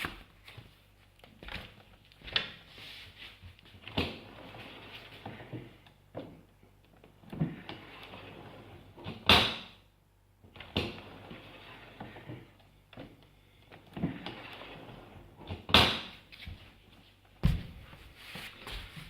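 A dishwasher door being lowered and raised repeatedly on its spring retaining mechanism, with sharp clunks and rattling in between. The two loudest clunks come about halfway through and again later on.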